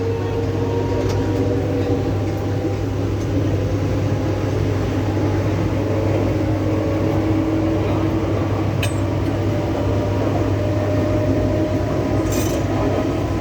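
Mumbai suburban local train running: a steady loud rumble with a motor whine that slowly rises in pitch, and two short clinks in the second half.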